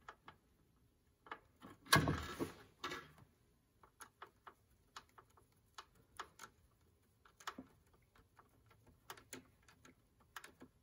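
Small clicks and taps as a wire is pushed into a plastic terminal block and its screw is worked with a small flat-blade screwdriver, with a louder scraping rustle lasting about a second, about two seconds in.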